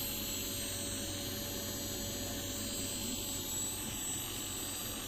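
LG inverter air conditioner running steadily, its indoor fan motor and inverter compressor on, giving an even hum with a faint steady whine. It is running normally, with no fault, after repair of the indoor PCB's LO error.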